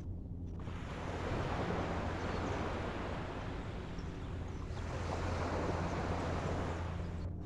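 Ocean waves washing against the shore, swelling twice, with wind rumbling on the microphone.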